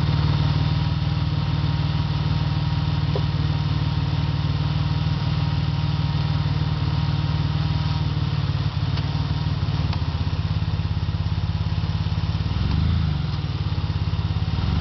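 1994 Mercury Sable's V6 engine idling with a rapid, even pulsing and a brief swell near the end, running on a bad motor mount.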